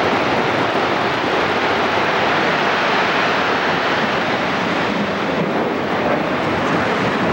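A loud, steady rushing roar from the North Tower (WTC 1) collapse and its onrushing cloud of dust and debris sweeping into the street.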